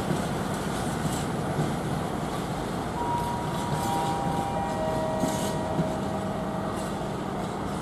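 Diesel locomotive running with freight wagons: a steady engine rumble and hum, with a few faint, thin, steady high tones joining about three seconds in and fading before the end.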